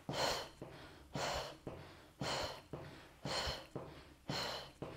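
A woman breathing hard and rhythmically while marching briskly on the spot, with a sharp exhale about once a second.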